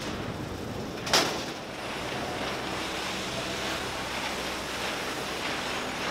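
Car-body assembly line machinery running with a steady hiss and hum, with one sharp knock about a second in.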